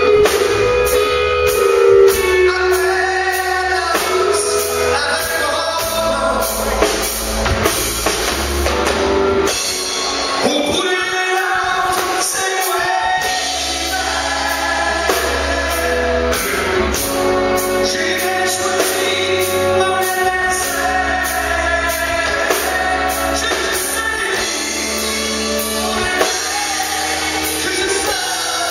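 Live rock band playing: singing over electric bass and drums, with a steady beat.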